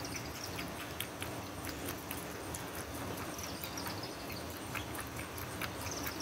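Opossum lapping and eating soft food from a dish: a run of small wet mouth clicks and smacks at an irregular pace.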